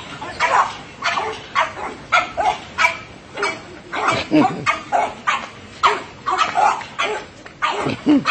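Two small dogs barking over and over, about two short barks a second, as they jump at a metal gate toward a boy.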